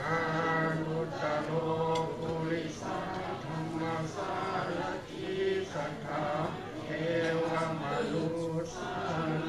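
Theravada Buddhist monks chanting Pali verses in unison on a low, steady monotone, in phrases of a second or two with short pauses for breath between them.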